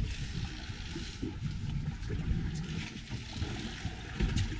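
Wind on the microphone and water noise on an open fishing boat: a steady low rumble with a few faint clicks.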